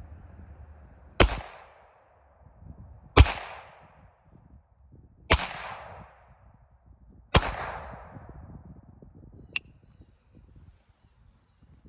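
Four shots from a Raven MP-25 .25 ACP pistol, fired evenly about two seconds apart, each with an echoing tail. Every round goes off with no misfire. A short sharp click follows about two seconds after the last shot.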